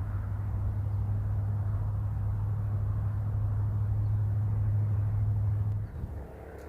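A steady low mechanical hum, like a distant engine, that cuts off abruptly near the end.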